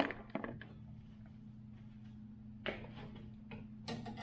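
Small sharp clicks and taps of an old wall light switch and its wires being handled as the wires are disconnected. A cluster of clicks comes near the start and single clicks follow later, over a faint steady low hum.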